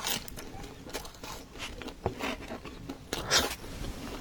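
Close-miked eating: a person chewing and biting pizza, with irregular soft clicks and scrapes and a louder crunchy burst about three seconds in.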